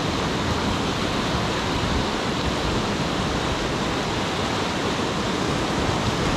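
Whitewater rapids rushing steadily over rock ledges, an even, unbroken noise of churning water.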